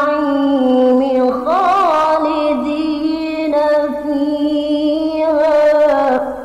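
A male qari's unaccompanied voice in mujawwad-style Quran recitation, holding long melismatic notes with a quick trilled ornament about a second and a half in. The held note ends and fades out near the end.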